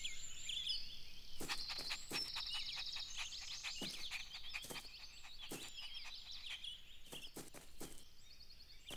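Birds chirping, with short runs of fast trills, over a faint garden ambience with a few scattered light taps.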